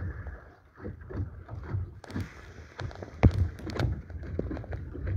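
Wind buffeting a phone's microphone inside a plastic dry bag: irregular low rumbling thumps, with scattered sharp crackles mostly in the second half.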